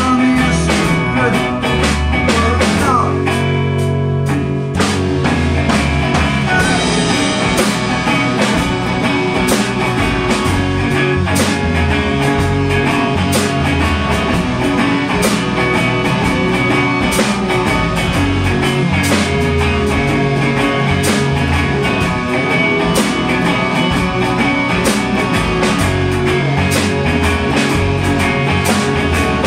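Rock band playing live: two electric guitars, electric bass and a drum kit keeping a steady beat, with a short guitar bend about three seconds in.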